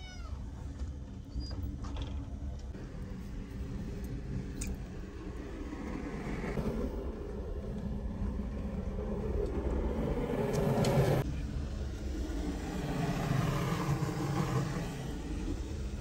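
Straw fire burning inside a clay tandoor: a steady, low rushing rumble of flames that swells toward the middle, breaks off suddenly about eleven seconds in, then swells again.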